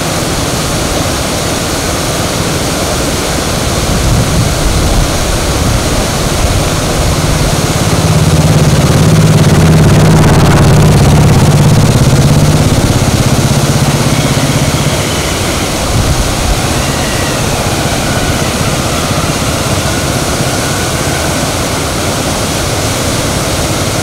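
Steady roar of a rain-swollen stream in spate, brown floodwater rushing fast over rocks and through bushes. A motor vehicle's engine hum grows louder and fades away, loudest about ten seconds in.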